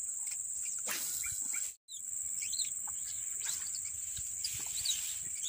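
Steady high-pitched drone of insects with short bird chirps over it, and a brief burst of noise about a second in. The sound cuts out completely for a moment just under two seconds in.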